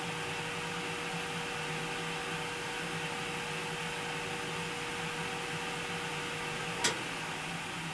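Malinovka Smart Chef electric home autoclave running just after its program has started: a steady electrical hum with a faint even tone. A single short click comes about seven seconds in, and the tone stops with it.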